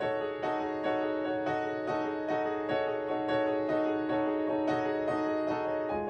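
Background music: solo piano playing a steady run of notes, about two or three a second.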